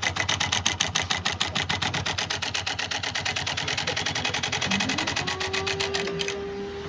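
Singer S0303 industrial leather sewing machine stitching: a rapid, even clatter of needle strokes, about nine a second, that stops shortly before the end. About five seconds in, a steady whine rises in pitch and then holds.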